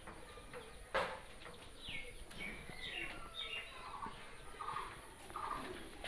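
Birds calling in short, repeated notes, some sliding down in pitch, with a sharp knock about a second in.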